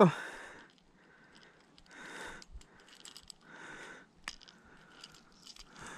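A few soft breaths close to the microphone, spaced a second or two apart, with one sharp click about four seconds in.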